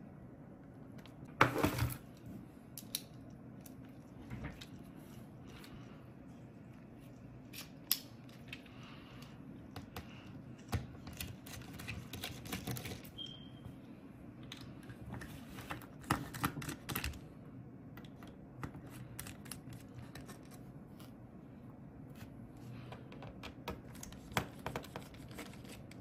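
Small metal tool-handling sounds: a loud clatter about a second and a half in, then scattered light clicks and ticks as a precision screwdriver with a T5 Torx bit backs out the small screws of a laptop's bottom cover.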